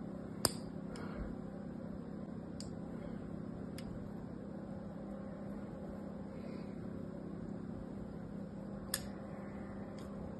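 A scissor blade scoring lines into a dry bar of soap: a few sharp clicks, the loudest about half a second in and another near the end, with faint scratching in between, over a steady low hum.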